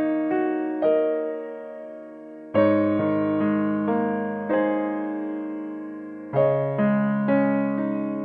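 Background music: slow piano chords, each struck and left to fade, a new chord every second or two.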